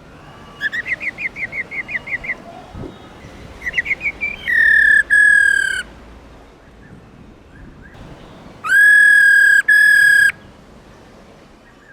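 Female black-throated laughingthrush calling. First comes a quick run of short rising notes, then a shorter run. After that come two long, steady, flat whistled notes, each broken briefly partway through.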